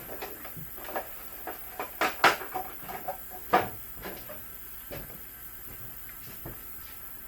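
Irregular handling knocks and clatter, the loudest a little after two seconds and again at about three and a half seconds, as a sharpened lawn mower blade is handled and set back in place under the mower.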